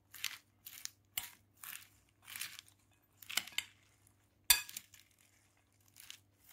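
Shredded salad leaves being tossed with a utensil in a glass bowl: crisp rustling and crunching strokes about every half second, with one sharp clink of the utensil against the bowl about four and a half seconds in.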